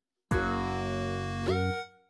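Background music: a held instrumental chord starts shortly after the beginning, a note slides upward about one and a half seconds in, and it cuts off just before the end.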